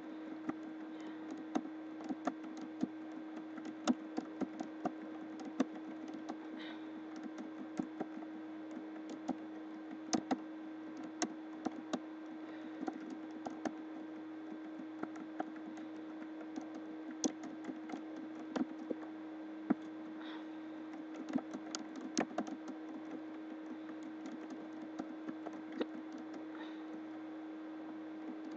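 Typing on a computer keyboard: irregular runs of key clicks over a steady electrical hum.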